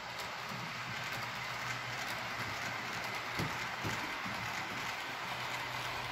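HO-scale model train running on the layout's track: a steady rolling rattle with a low hum and scattered light clicks.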